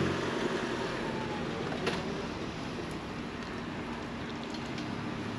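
Car towing a caravan, moving slowly: a steady running and rolling noise, with a single sharp knock about two seconds in.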